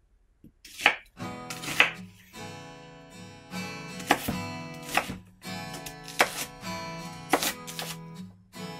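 Kitchen knife chopping an onion on a wooden cutting board, a sharp chop roughly every second. Acoustic guitar background music starts about a second in and plays under the chopping.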